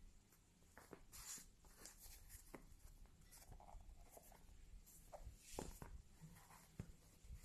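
Near silence, broken by faint scattered rustles and light clicks, like small handling noises.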